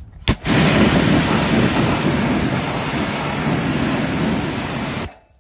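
Pressure washer jet spraying onto an alloy wheel, rinsing off wheel cleaner: a loud, steady hiss that starts just after a click about half a second in and cuts off suddenly about five seconds in.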